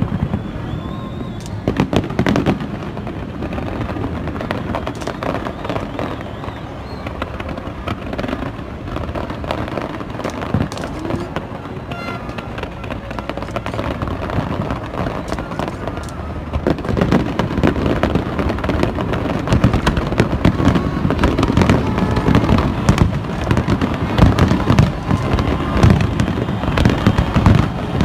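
Fireworks display: a continuous barrage of bangs and crackling bursts, growing denser and louder about two-thirds of the way through.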